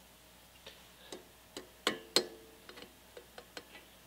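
About a dozen light, irregular clicks and taps, the two loudest near the middle, one with a brief metallic ring: metal parts of a small air-compressor cylinder being handled.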